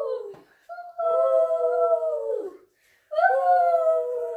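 A voice making long, drawn-out 'woo' wind noises, imitating a swirling snowstorm. One call ends just after the start, then two more long calls follow, each sliding down in pitch at its end.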